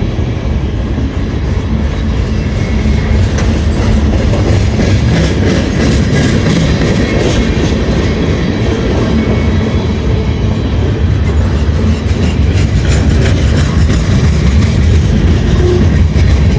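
CSX freight train's cars rolling slowly past, a loud steady rumble with wheels clicking over rail joints, the clicks coming thicker in the second half.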